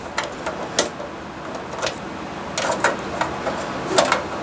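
Insulated wires and plastic twist-on wire connectors clicking and rattling against a baseboard heater's sheet-metal junction box as they are pushed inside. The clicks come irregularly, with a few together around three seconds in and again near the end.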